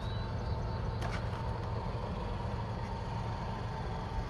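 Steady low rumble of outdoor background noise with a faint, steady high tone, and one light click about a second in.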